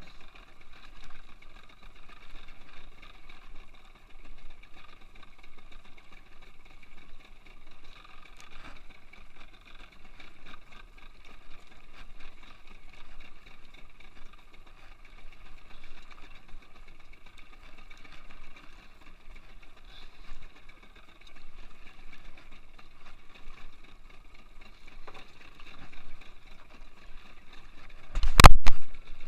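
Boat engine running steadily, with one loud thump about a second before the end.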